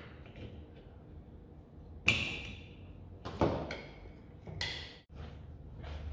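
Three sharp clacks of hard objects striking, about a second and a quarter apart, each with a brief ringing tail.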